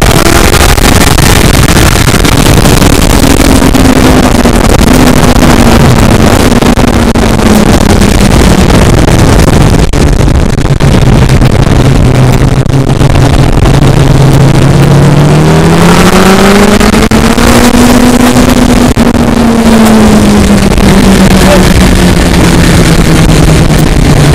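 Car engine running hard, its pitch falling and rising with the revs: lowest about halfway through, climbing again about two-thirds of the way in, then easing off. A loud, even rushing noise runs over it the whole time.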